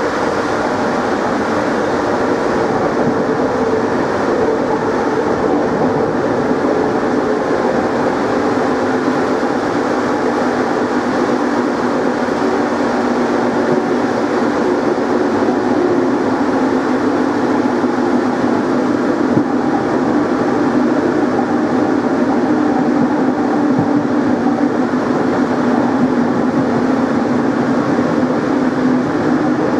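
NS Plan V (Mat'64) electric multiple unit running, its traction motors giving a steady hum over the rolling noise of the train. The pitch of the hum slowly falls through the second half.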